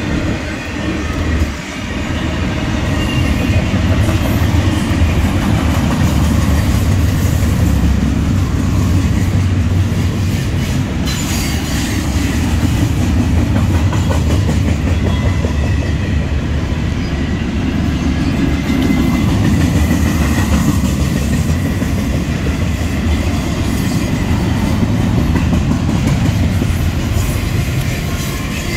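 Cars of a BNSF intermodal freight train (double-stack container cars and trailers on flatcars) rolling past at close range: a steady, loud rumble of steel wheels on the rails.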